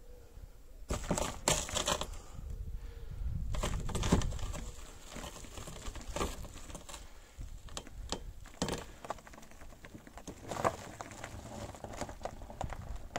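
Gravel crunching, with scattered clicks, as a car is let down off a trolley floor jack onto its wheel. The louder crunches come about a second in and again around four seconds.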